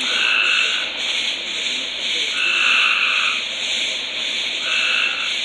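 Dense night chorus of calling frogs, swelling about every two seconds over a steady, fast-pulsing high trill. No firework bangs.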